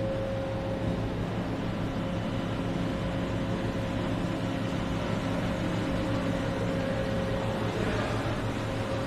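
Hartford X-3240 double column CNC machining centre running, a steady mechanical hum with several constant tones over an even whirring noise.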